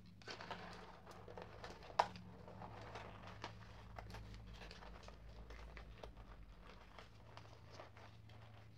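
Rustling and small clicks of a string of Christmas LED lights being folded by hand and packed into its small cardboard box, with one sharper click about two seconds in.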